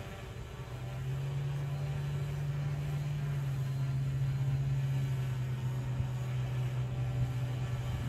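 DJI Mavic Pro quadcopter in flight on 8331 low-noise propellers, giving a steady propeller hum. The hum grows louder about a second in and then holds steady.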